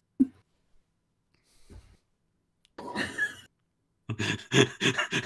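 A man's breathy exhale, then from about four seconds in a run of quick chuckles, several pulses a second.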